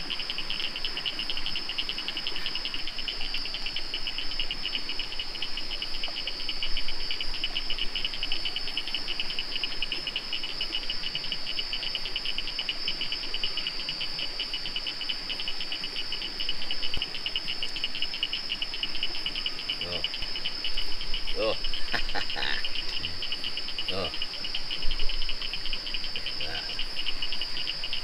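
Chorus of rainforest insects: a steady high shrill with a fast pulsing trill just below it. A few faint knocks come in near the end.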